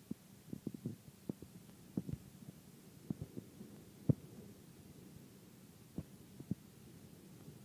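Faint, soft, low thumps coming at irregular intervals, about a dozen in all, over a faint steady hum.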